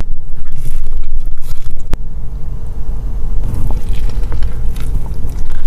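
Steady low rumble of a car cabin, with a sharp click about two seconds in and faint chewing ticks as fries are eaten.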